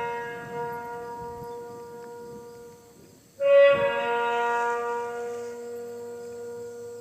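Music: long held wind-instrument notes, one fading from the start and a second loud one swelling in about three and a half seconds in, then slowly dying away.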